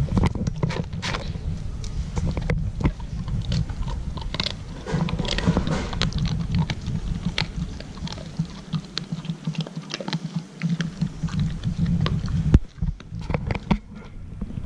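A dog chewing and licking raw sheep offal, a run of irregular wet clicks and smacks, over a low wind rumble on the microphone that drops out near the end.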